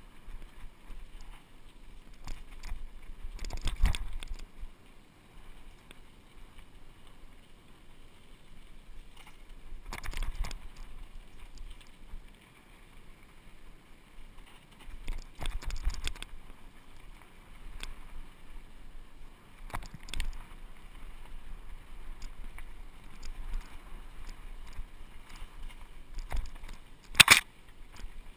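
Fuji hardtail mountain bike rolling fast down a dirt singletrack: a steady rush of tyres on dirt and air, broken by several short bursts of rattling as the bike jolts over bumps, and a sharp loud clack near the end.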